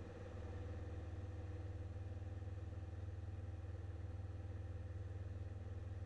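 Grumman Tiger's four-cylinder Lycoming engine and propeller droning steadily in flight, with the mixture just set full rich. It gets slightly louder about a third of a second in, then holds even.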